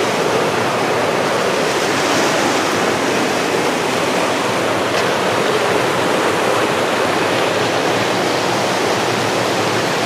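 River water rushing and cascading over rocks, a steady even rush that does not change.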